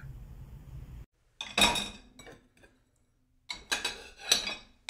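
Clinking of cutlery against crockery: two ringing strikes about a second and a half in, then a quick run of three or four more near the end.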